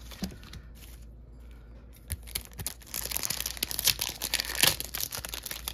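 Foil wrapper of a Pokémon TCG mini booster pack being handled and torn open. After a few light clicks of handling, it breaks into dense crinkling and tearing from about halfway, loudest near the end.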